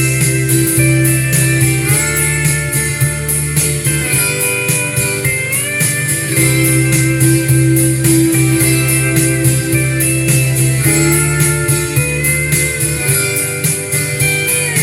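Instrumental break of a country-folk song: band music led by guitars, with held notes that now and then glide in pitch over a steady strummed rhythm.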